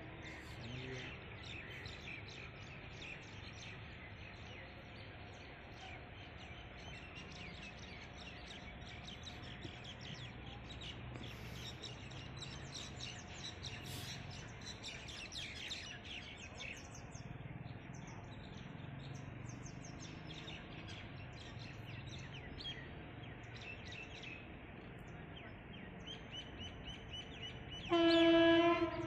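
Birds chirping and calling over a low background rumble, the chirps thickest around the middle. Near the end, a train horn sounds loudly for about a second.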